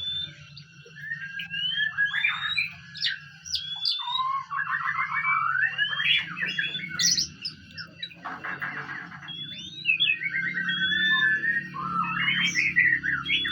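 A songbird singing a fast, varied song of whistled glides, rapid trills and a harsh rasping note about two-thirds of the way through, the kind of song bred for in Indonesian song-contest birds.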